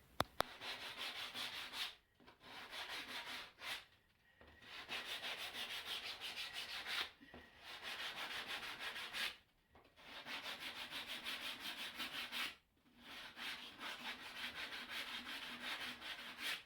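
Sandpaper being rubbed by hand along the edges of routed grooves in chipboard to smooth away tear-out, in quick back-and-forth strokes. It comes in about six bouts of one to three seconds, with short pauses between them.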